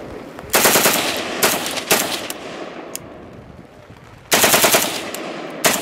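Select-fire rifle firing a rapid burst, then short bursts and single shots, then another burst about four seconds in. The fire keeps breaking off because the selector is slipping out of full auto: the bolt knocks it down.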